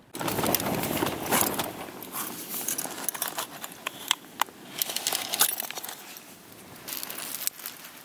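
Rustling and handling of camping kit, with a few sharp metallic clicks about four seconds in as the thin wire pot supports of a small camping stove are folded out.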